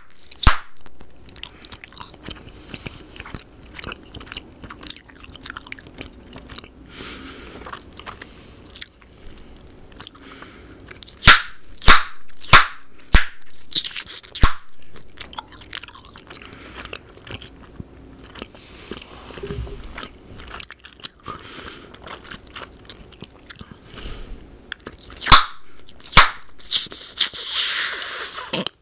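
A big wad of bubble gum chewed close to the microphone: wet, smacking chewing with frequent small clicks and several sharp gum snaps, one about half a second in, a cluster around the middle and two more near the end. A short breathy rush follows just before the end.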